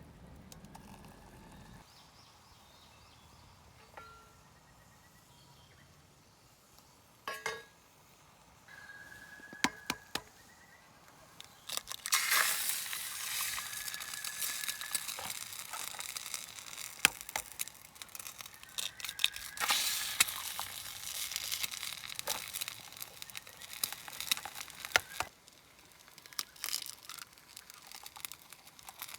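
Crinkling and rustling of plastic or fabric being handled, with many sharp clicks. It starts about twelve seconds in and stops suddenly a few seconds before the end.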